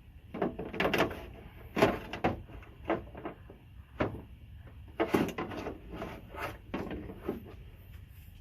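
Irregular clicks, knocks and rattles of a door latch and lock actuator assembly being handled and slipped into place inside a car door, in several quick clusters.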